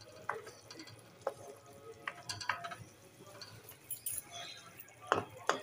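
A spoon stirring thick tomato chutney in a metal kadai, with scattered light clinks and taps against the pan, about eight in all, the loudest two near the end.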